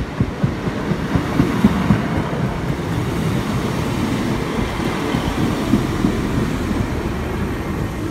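Class 150 diesel multiple unit running along the platform, its wheels knocking and clattering over the rails under a steady low rumble of the train.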